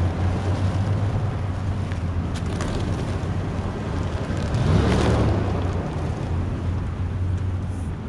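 Street traffic with wind on the microphone: a steady low engine hum, and a vehicle passing by about five seconds in.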